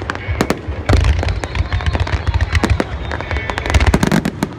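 Fireworks barrage: a dense run of rapid crackling reports over deep booming thuds, loudest about a second in and again near the end, where the cracking breaks off.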